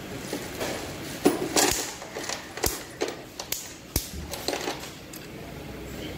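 Irregular sharp metallic clicks and knocks of a torque wrench and socket working on the cylinder head bolts of a Tata Nano engine as they are tightened to torque.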